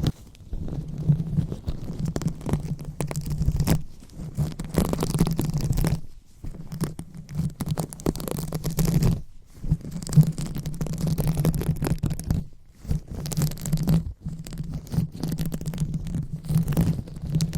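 ASMR 'brain massage' sounds: slow rubbing and scratching close on the microphone, with a deep rumble under the rustle. It comes in strokes of two to three seconds, about six of them, each separated by a brief pause.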